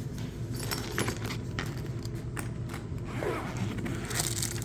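Items being handled in a fabric tool bag: scattered light clicks and knocks, with a brief rustle near the end, over a steady low hum.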